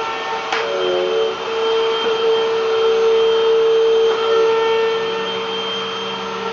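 Vacuum cleaner motor running with a steady whine over a rushing air noise. There is a click about half a second in, and the pitch dips and wobbles briefly about a second in before steadying.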